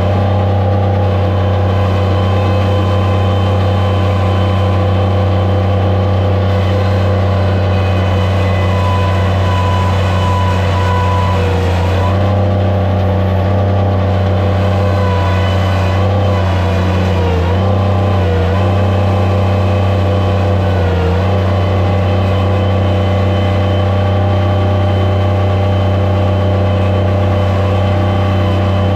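Skid steer loader's engine running steadily at high revs, its pitch dipping briefly a few times midway.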